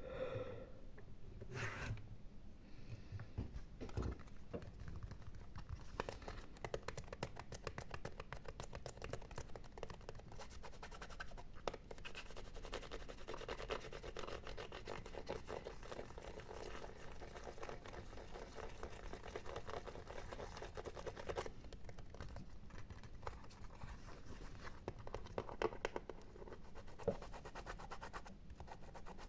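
Close-miked ASMR scratching: a long run of rapid, dense scratching strokes through the middle, with sparser scratches and rustles at the start and near the end.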